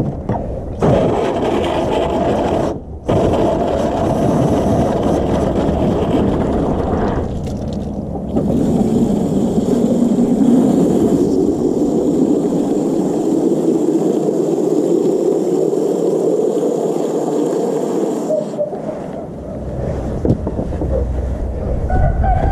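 Water from a garden hose's spray nozzle running into a plastic gallon jug, a steady rushing with a brief break about three seconds in. About eight seconds in it grows louder and its pitch slowly rises as the jug fills, then it stops a few seconds before the end.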